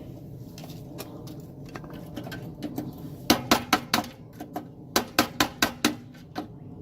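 Sharp metallic taps, a hard tool striking metal. There is a run of about five quick taps after about three seconds and another run of about five after about five seconds, each with a short ring.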